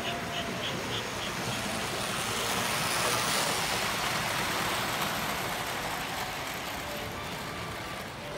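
American Flyer model train running past on the layout's track, its rumble swelling to a peak about three seconds in and then fading away. A quick run of light, even ticks sounds in the first second or so.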